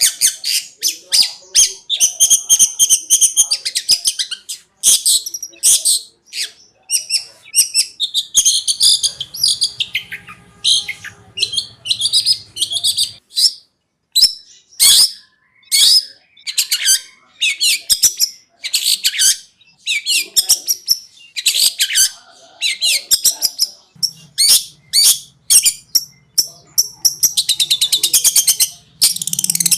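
Long-tailed shrike (cendet) singing a fast, varied song of rapid chattering and sharp high notes, in bursts separated by short pauses.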